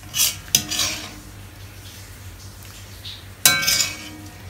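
A metal spoon scraping and clinking against a wok and a ceramic bowl as stir-fried food is served out. There are two quick clinks near the start and a louder clink about three and a half seconds in, each ringing briefly.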